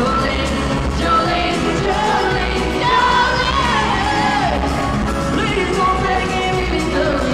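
A live band plays with acoustic guitar, upright bass and drums, while a female lead singer sings with a backing singer. It is heard from within an arena audience.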